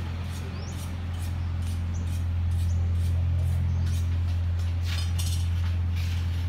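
A steady low hum with a few faint, short high clicks and squeaks over it.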